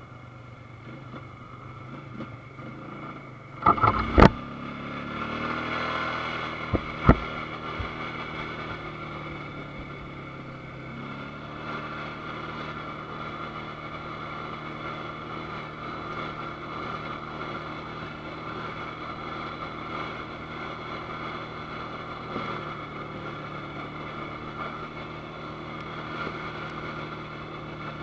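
ATV engine running steadily as the machine is ridden. A few loud knocks come about four seconds in, then the engine revs up and settles, with a sharp click a few seconds later.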